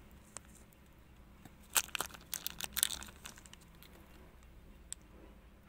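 Plastic bags of oyster-mushroom baglogs crinkling and crackling as they are handled and pulled open by hand, with a cluster of sharp crackles from about two to three seconds in and a single click near the end.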